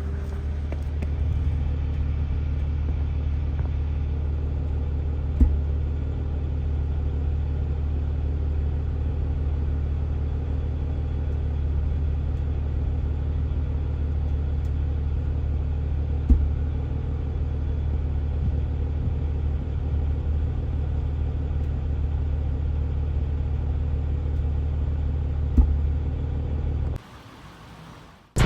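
Acura TL Type S V6 engine running with a steady low rumble, broken by three short sharp thumps, until it stops about a second and a half before the end. The owner says the engine is misfiring.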